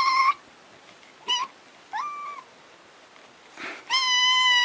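Kitten meowing repeatedly in thin, high-pitched mews: short ones about a second apart, then one longer, steady mew near the end.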